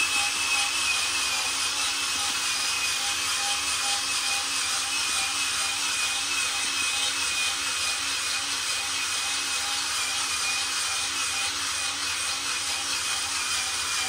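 Electric drill running steadily with a fine-grit sanding disc pressed against floor tile: a high, even motor whine over a scratchy grinding hiss.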